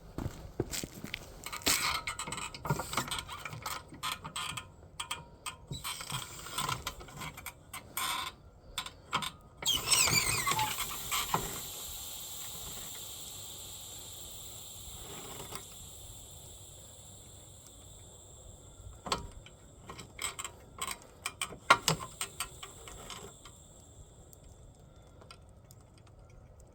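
Car jack being worked to lower the car onto the tire: a run of clicks and knocks, then from about ten seconds in a steady high sound that slowly fades, then a few more knocks.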